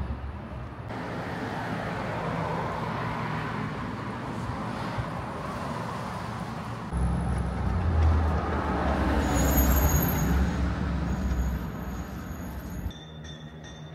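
Road traffic passing along a city street, a rushing tyre-and-engine noise, with a heavy vehicle's low engine rumble loudest in the middle. It drops off abruptly near the end.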